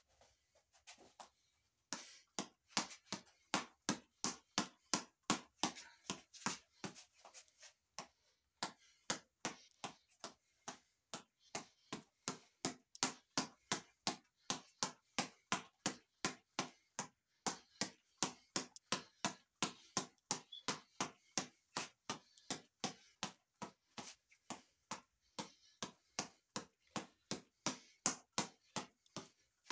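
Boxing reflex ball on a headband elastic being punched over and over with bare fists: a quick, steady rhythm of sharp slaps, about two to three a second, with a short break about eight seconds in.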